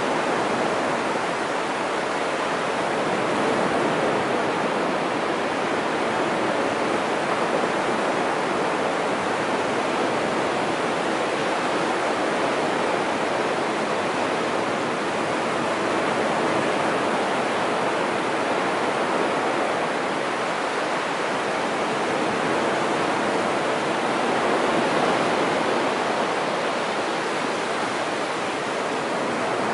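Surf of the Sea of Japan washing up a flat sandy beach: a steady rushing wash that swells and eases slowly.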